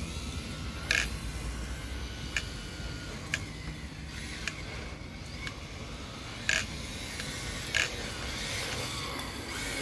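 MST RMX 2.0 rear-wheel-drive RC drift car driving, with a low steady running noise and about six short, sharp squeaks spread through it.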